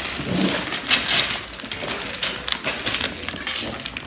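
Shiny wrapping paper being torn and crinkled by hand as a present is unwrapped: a steady run of quick crackles and short rips.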